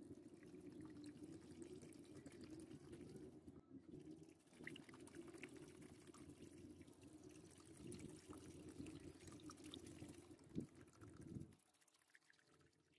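Faint sound of vinegar pouring from a plastic jug into a shallow plastic trough, running and splashing over a rusted steel sword blade. The flow dips briefly about four seconds in and stops a little before the end.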